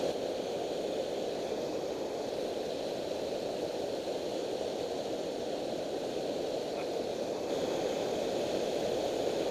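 Steady rush of river water pouring over a low-head dam spillway and churning in the pool below.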